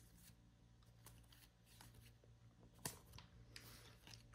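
Near silence with faint soft clicks and slides of a stack of chrome baseball cards being flipped through by hand, one sharper tick about three seconds in.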